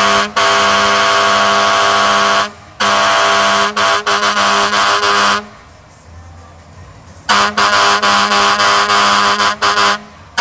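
Fire engine air horn blaring in long blasts, with a few brief breaks and a pause of about two seconds in the middle before another long blast.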